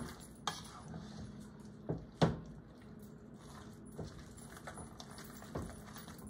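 A few scattered light clinks and knocks with gaps between them, the loudest about two seconds in.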